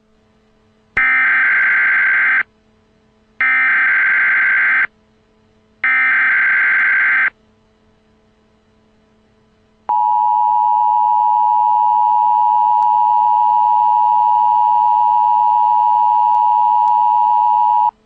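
Emergency Alert System broadcast tones opening a flash flood warning. First come three bursts of warbling digital header data, each about a second and a half long with a short gap between them. Then the two-tone attention signal starts about ten seconds in and holds steady for about eight seconds before cutting off sharply.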